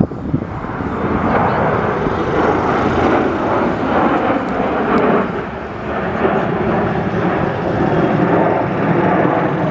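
Jet engine noise from a formation of six fighter jets flying past: a steady rushing roar that swells over the first second and eases briefly about halfway through.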